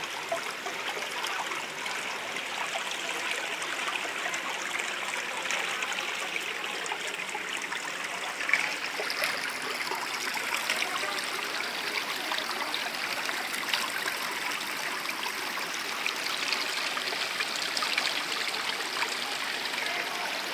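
Shallow forest river running over rocks and stones, a steady babbling rush of water.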